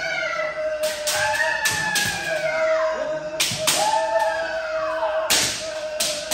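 Kendo sparring: repeated sharp cracks of bamboo shinai striking armor, with stamping of bare feet on a wooden floor. Several fencers shout long, drawn-out kiai over the strikes, one shout taking over from another.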